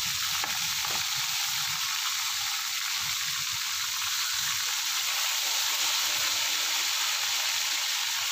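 Tilapia frying in coconut oil in a wok: a steady, even sizzle.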